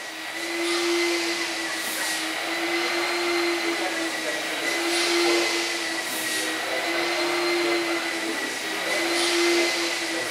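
Steam-driven electricity generating set running: a steady low hum with a high, even whine over it and a hiss that swells several times.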